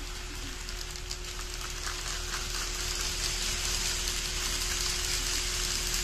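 N-gauge model freight train rolling past on the track: a hissing rattle of the wagons' small wheels on the rails that grows louder as the wagons pass and eases near the end, over a steady hum.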